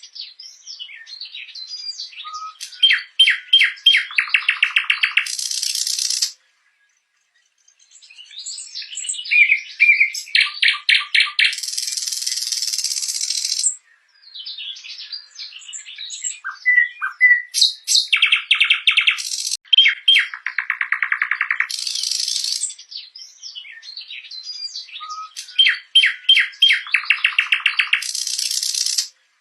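Nightingale singing: phrases of rapid repeated notes and dense buzzy trills, each a few seconds long, with a pause of about a second and a half after the first phrase.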